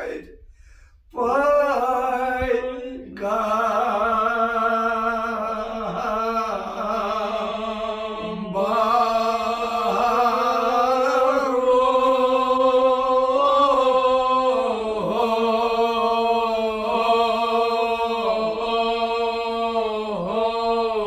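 Unaccompanied male chanting of a Kashmiri marsiya, a mourning elegy, sung in long held melodic lines. It begins after a short silence about a second in.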